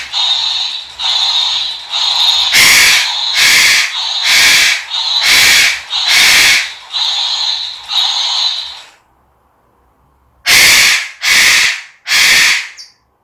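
African grey parrot screeching loudly over and over, about one harsh call a second, some of them drawn out, in the angry outburst of a parrot that is very upset. Near the end it stops for about a second and a half, then gives three short screeches.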